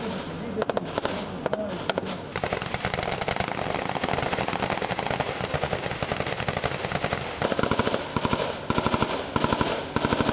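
Boat-mounted machine guns firing live rounds in automatic bursts. A long unbroken stretch of rapid fire runs from about two to seven seconds in, with shorter bursts before and after it.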